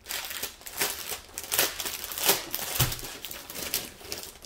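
Crinkling and rustling of plastic film and paper being handled: a dense, irregular run of crackles.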